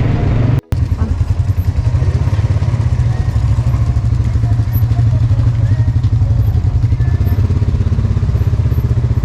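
ATV engine running steadily with a rapid, even putter of firing pulses, cutting in after a momentary gap of silence under a second in.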